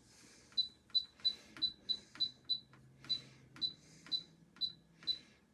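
Air fryer control panel beeping as its button is pressed over and over to set the cooking time: a rapid series of short high beeps, each with a click, about three a second at first and then about two a second.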